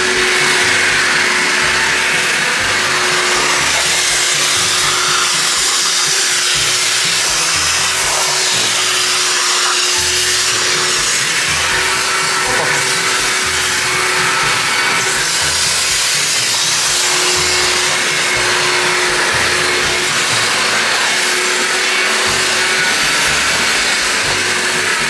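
Large wet carpet-extraction vacuum running steadily, its wand sucking water and dirt out of a carpet with a continuous rushing sound.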